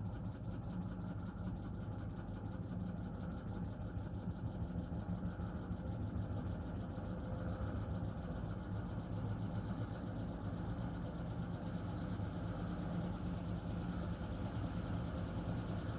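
Miele W1 washing machine running an intermediate spin after the main wash: a steady motor hum with a fast, even pulsing from the turning drum that gradually quickens as the drum speeds up.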